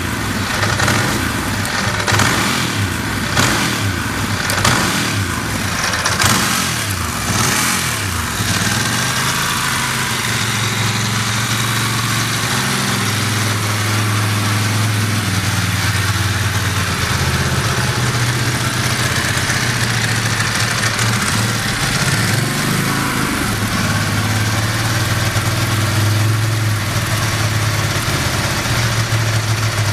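Ducati Monster S4R's L-twin engine revved briefly about six times, roughly a second apart, then settling into a steady, even idle with no odd noises.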